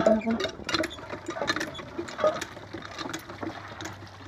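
Water running from a pipe into a plastic basin as raw chicken pieces are washed by hand, with irregular splashes and clicks over a low, steady hum.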